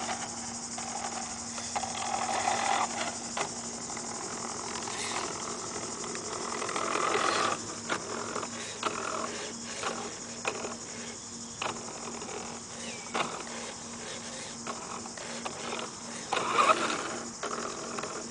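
Toy radio-controlled Hummer's electric drive motor and gears whirring in spurts as it is driven over grass, with scattered clicks, over a steady high-pitched hiss.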